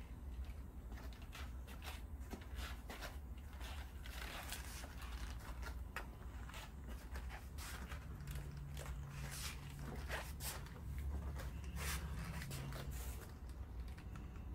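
Thick liquid being poured from a plastic measuring bucket into a wooden form: soft, irregular clicks and crackles of the bucket being handled and the pour landing, over a low steady rumble. A faint hum joins in about two-thirds of the way through.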